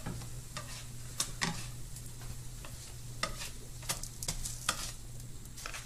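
Small kimchi pancakes sizzling steadily in hot canola oil in a frying pan, with a dozen or so light clicks and scrapes of a utensil against the pan as they are lifted out onto a plate.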